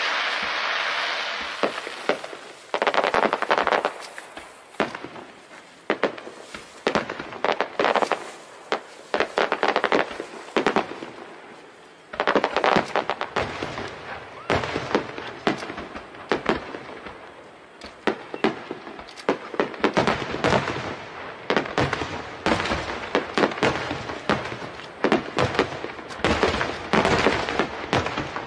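Fireworks display: a hiss fades away in the first two seconds, then aerial shells burst in a run of bangs with crackling after them. The bangs come every second or two at first and follow one another thickly from about halfway through.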